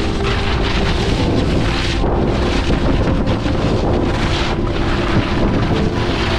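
Wind buffeting the camera's microphone during a ski run: a loud, steady rush.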